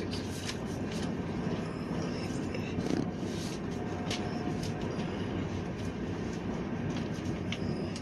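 Steady rumble of a passenger train running at speed, heard inside a closed coach, with a few faint clicks.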